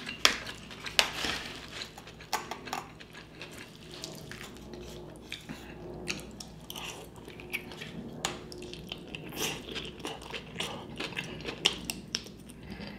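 Utensils clicking and scraping against a dish of food, with chewing between the clicks.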